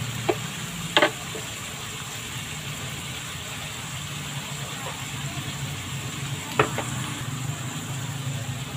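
Shrimp and clams sizzling steadily in a pan over a gas burner, over a low steady hum, with a few sharp clicks, the loudest about a second in.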